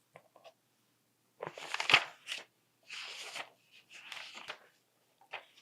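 Paper rustling in three bursts about a second apart, the pages of a picture book being handled and turned, with a sharp crackle in the first burst.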